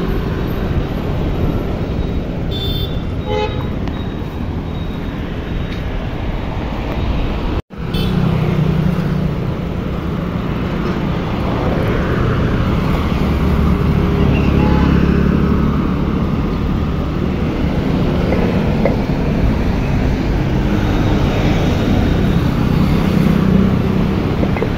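Steady city road traffic, with a short horn toot about three seconds in. The sound cuts out for a moment near the middle.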